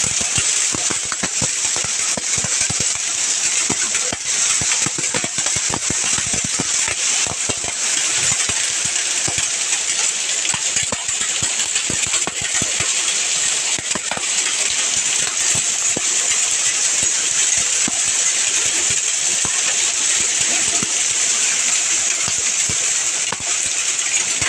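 Hail and heavy rain pelting down: a steady rain hiss with dense, irregular clicks and knocks of hailstones striking hard surfaces.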